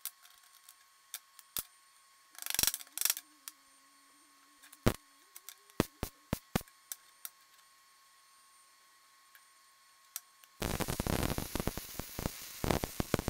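Steel parts clink and knock on a steel workbench as a roller end is fitted over a stub shaft. About ten seconds in, an electric arc welder strikes up and runs with a steady, spattery crackle, welding the new shaft into the roller end.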